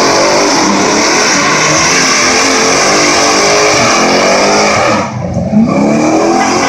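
Box Chevy's engine revving hard while its rear tyres spin in a burnout. The revs rise and fall over a steady hiss of tyre spin, dip briefly about five seconds in, then climb again.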